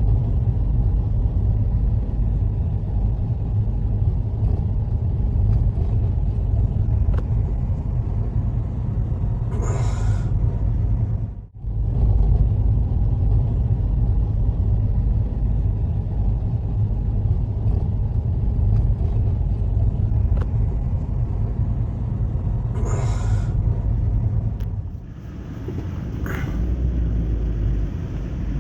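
Strong winter storm wind buffeting the microphone in a steady low rumble. It breaks off for a moment about eleven seconds in, and two brief, sharper noises come through at about ten and twenty-three seconds.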